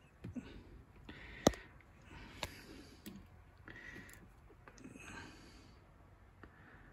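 A few faint clicks and taps from a hard plastic action figure being handled and set down on a shelf, the sharpest about a second and a half in.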